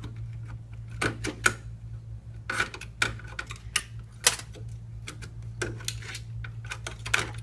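Irregular sharp clicks and clatter of plastic and metal as the CPU cooler's retention clip is worked loose and the heatsink is handled on the motherboard, over a steady low hum.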